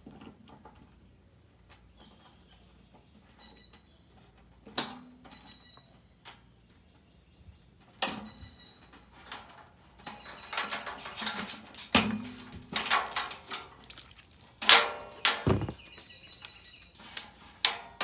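Scattered clicks, clinks and knocks of a hand tool and wiring against a furnace blower's sheet-metal housing as the blower motor's wires are worked loose. Sparse at first, with a couple of clinks that ring briefly, then busier from about ten seconds in.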